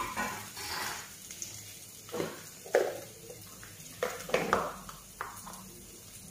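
A small plastic container with a snap lid being handled: a few scattered knocks and clicks, the sharpest nearly three seconds in and a cluster about four and a half seconds in.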